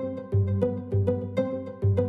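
Background music: a light melody of short plucked notes, about three a second, over a sustained bass line with a steady beat.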